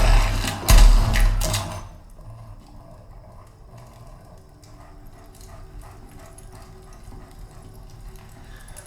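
Movie action soundtrack played through a home theater system with subwoofers: heavy deep bass hits and loud effects for about the first two seconds, then a sudden drop to a quiet passage of faint low sounds and light ticks.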